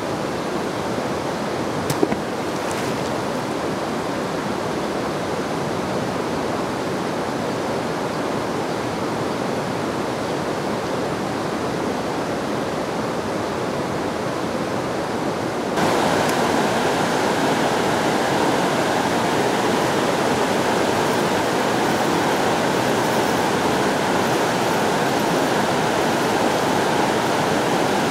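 Steady rush of river water running over a rocky riffle, with one brief knock about two seconds in. About halfway through the rushing turns suddenly louder and brighter.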